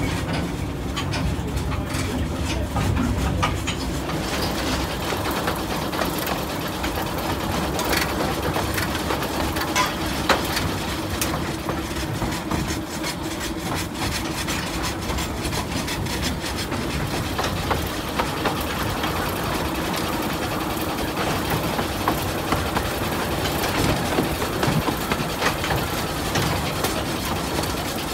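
Narrow-gauge railway carriage running along the track: a steady rattling ride noise with many scattered clicks and knocks from the wheels and running gear.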